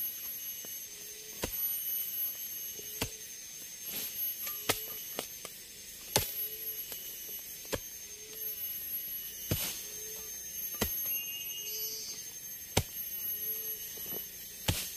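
A hand tool striking ground and undergrowth while clearing a campsite, with sharp single blows at an irregular pace of about one every second or two, over a steady high-pitched drone of forest insects.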